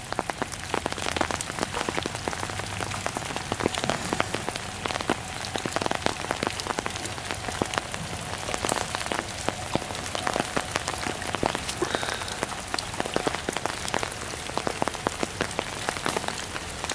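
Steady rain falling, with many close drops ticking irregularly.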